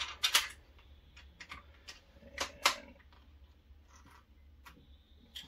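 Screwdriver snugging up a screw in an aluminium frame plate: scattered sharp metallic clicks and ticks of the tool and screw. The loudest come just after the start and about two and a half seconds in.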